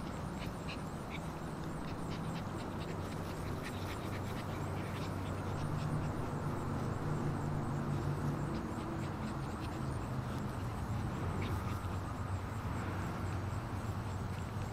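Alaskan Malamute puppies making small squeaky yips at play, over a steady low mechanical hum.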